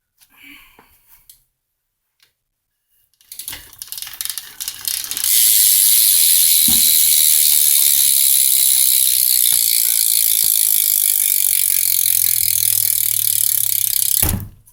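Fit Mac 2 BMX rear hub freewheeling as the rear wheel spins: the pawls ratchet so fast they blur into a loud, steady buzz. It builds up about three and a half seconds in and cuts off suddenly near the end.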